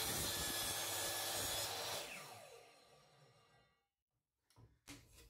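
HiKOKI 216 mm mitre saw running at full speed as the blade is brought down on a strip of wood; it is switched off about two seconds in and the blade spins down with a falling whine. A few light clicks near the end.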